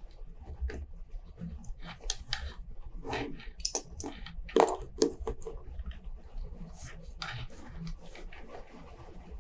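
Small clicks and scrapes of steel tweezers and a stainless steel watch case being handled while a Seiko 7S26A movement is taken out of its case, with two sharper clicks about four and a half and five seconds in.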